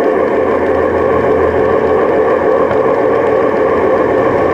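Large-scale model Shay locomotive running right behind the camera car: a steady mechanical whir of its drive and wheels on the rails.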